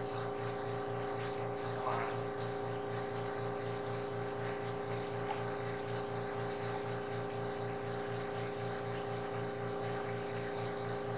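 Air compressor running: a steady hum with a fast, even pulse.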